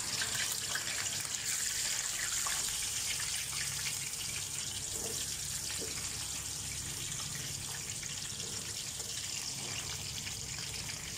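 Potato slices deep-frying in hot oil: a steady crackling sizzle that slowly gets a little quieter.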